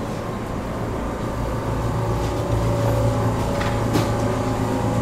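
Inside the car of an ET127 series electric train in the depot yard: a steady low hum from the train's electrical equipment, with a few sharp clicks between about two and a half and four seconds in.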